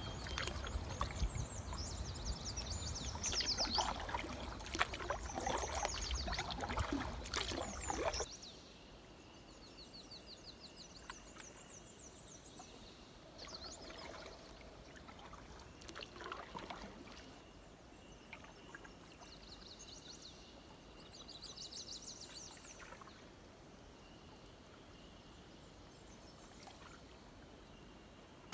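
Canoe paddling on calm water: paddle strokes with water pouring and trickling off the blade. After about eight seconds it drops to a much quieter stretch of faint water sounds, with birds calling in short repeated trills now and then.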